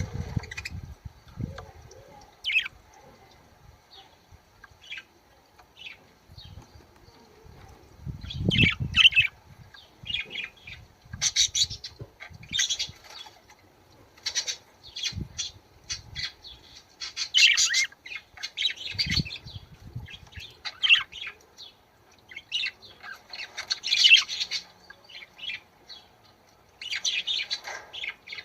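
Budgerigars chirping and warbling in short, quick bursts. The calls are sparse at first and grow busier after a few seconds. A couple of dull low thuds are mixed in.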